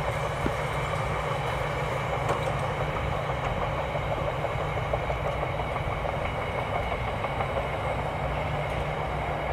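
A train running along the railway line, a steady rumble with a thin high whine.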